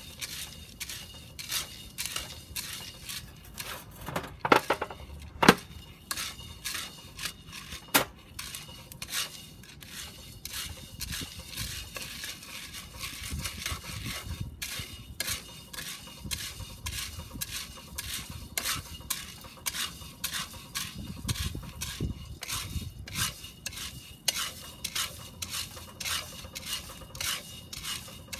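Wooden spoon stirring roasting coffee beans in a round cast iron pot, the beans rattling and scraping against the iron in a steady stream of sharp clicks. A few louder knocks come about four to eight seconds in.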